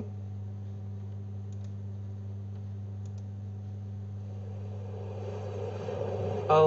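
A steady low hum with faint hiss in a gap between chanted phrases, growing slightly louder toward the end. A chanting voice comes back in just at the end.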